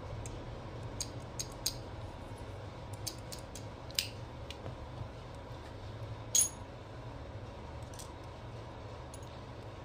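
Steel governor parts of a Hino J08C diesel fuel injection pump clicking and clinking against each other as they are handled and fitted by hand, a scattered run of light metal clicks. One louder clink with a short metallic ring comes about two-thirds of the way through, over a steady low background hum.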